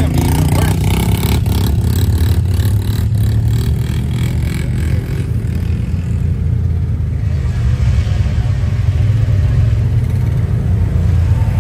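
Off-road vehicle engine running while driving, with rattling clatter over the first few seconds.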